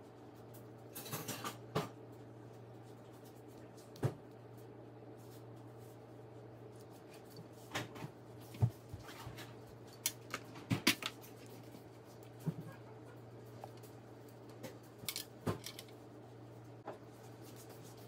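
Scattered light clicks, taps and scrapes of small parts and hand tools being handled during the strip-down and servicing of an impact driver, over a steady low hum. The clicks come in small clusters, the sharpest about eight to eleven seconds in.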